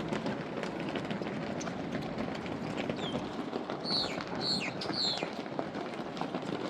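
Footsteps over steady outdoor wind noise, with a bird giving about four quick falling chirps between three and five seconds in.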